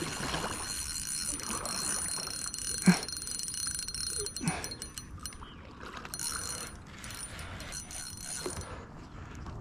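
Spinning reel being cranked in stretches against a hooked fish, its gears giving a high whirring with fast clicking; the whir drops out briefly about halfway through and again near the end. A sharp knock about three seconds in, and a smaller one a second and a half later.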